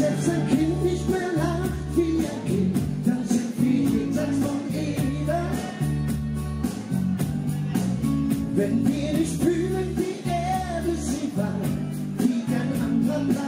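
Amplified song performed live on stage: a man and a woman singing into microphones over backing music with a steady bass.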